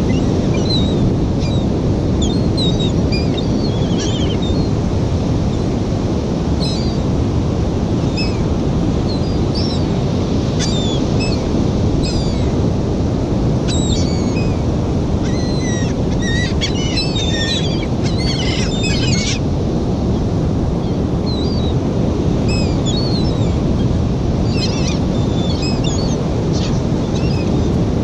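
A flock of gulls calling in many short, high cries, most crowded a little past the middle, over a steady rush of wind and surf.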